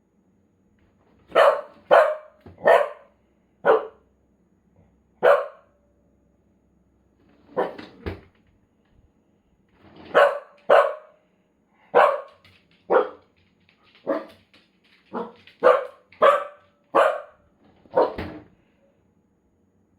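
A corgi barking at the refrigerator's freezer drawer being opened, a warning bark. About sixteen short, sharp barks come in irregular groups of two or three, with short pauses between them.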